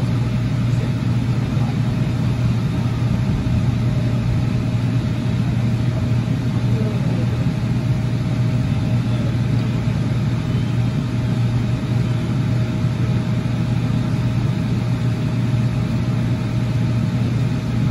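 Steady running noise inside a 2006 AnsaldoBreda P2550 light rail car in motion: a low, even rumble with a thin, steady whine above it.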